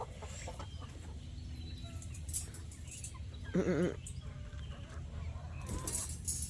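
A farm animal's single short, wavering call about three and a half seconds in, over a steady low background with scattered light clicks and rustles.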